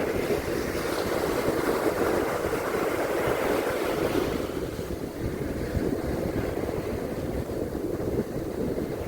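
Sea surf washing on a beach, with wind rumbling on the microphone. A wave swells up over the first few seconds and then eases off.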